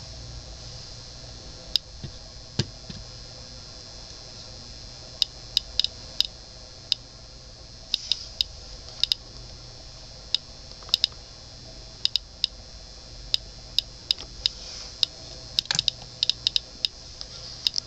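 Geiger counter clicking at random intervals as it picks up radiation from an old electric clock's luminous hands; the clicks come much faster near the end, when the counter is pressed against the clock face.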